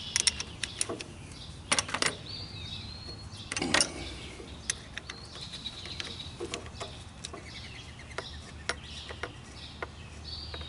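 Irregular metal clicks and clinks of wrenches working the terminal nuts on a lawn tractor's starter solenoid, with a couple of louder knocks, while birds chirp in the background.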